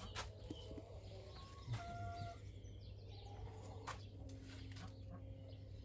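Faint bird calls over a low steady hum, with one short clear call about two seconds in and a few light clicks.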